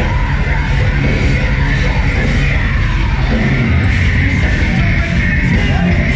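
A live heavy metal band playing loud and without a break, with yelling over the music, heard from among the crowd at the show.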